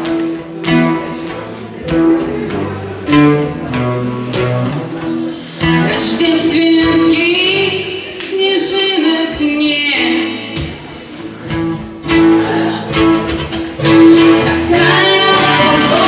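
Live acoustic music: a guitar plucks a steady accompaniment under a sustained melody with vibrato, which swells in the middle and again near the end.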